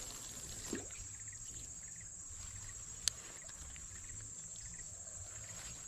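Riverbank ambience: a steady high insect drone over the low rush of a flooded river. About three seconds in comes one sharp click from the angler's spinning reel as he handles it after the cast.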